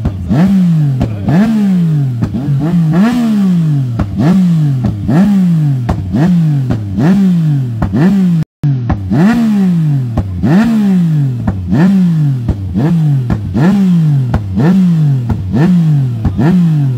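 Suzuki sportbike engine being revved over and over, about once a second: each blip of the throttle sends the revs up sharply and lets them fall back before the next. The sound cuts out for a moment about eight and a half seconds in.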